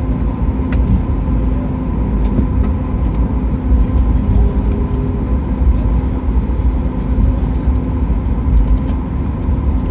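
Cabin noise of a Boeing 737 MAX 8-200 taxiing, heard from a window seat beside the wing: a steady low rumble from the rolling aircraft, with a constant hum from the CFM LEAP-1B engines running at low taxi power.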